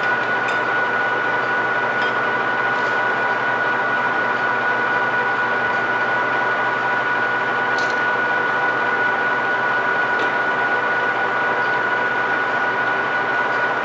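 Metal lathe spindle running with the chuck and workpiece spinning and no cut being made: a steady machine hum with a high, even whine over it. A faint click comes about eight seconds in.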